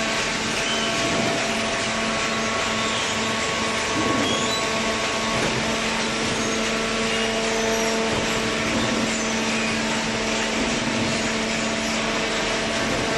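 Paper baler machinery running: a steady mechanical noise with a constant hum in several tones, like a motor-driven hydraulic unit.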